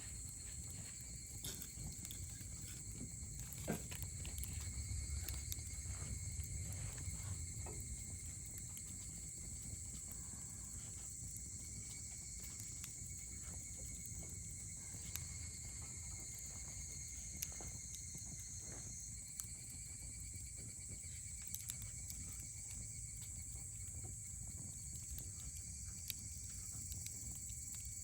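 Wood campfire crackling with scattered sharp pops, over a steady high-pitched chirring of insects.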